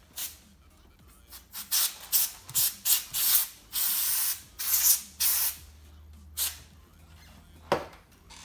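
Compressed-air duster can sprayed in a run of short hissing bursts, with one longer blast about four seconds in and a last short burst near the end.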